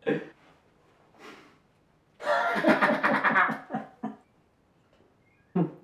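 A man laughing for about two seconds, starting about two seconds in. A short vocal sound comes at the very start and another near the end.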